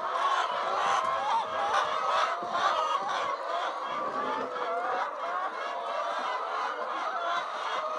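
A flock of chickens calling all at once: many overlapping clucks and wavering calls with no break.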